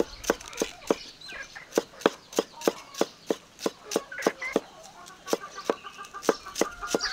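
Steady chopping with a knife on a wooden board, about three strokes a second, with a short break a little past halfway. Chickens cluck in the background.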